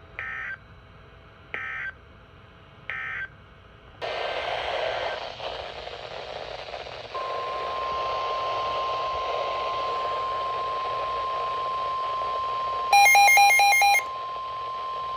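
Emergency Alert System weather-radio audio: three short buzzy SAME data bursts about 1.4 s apart, then radio hiss. From about seven seconds in, the steady single-pitch NOAA Weather Radio alert tone sounds, overlaid near the end by a louder, harsher buzzing tone for about a second.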